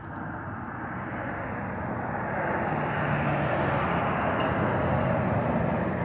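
A motor vehicle going past: a rushing noise with a low hum that swells over several seconds and then holds.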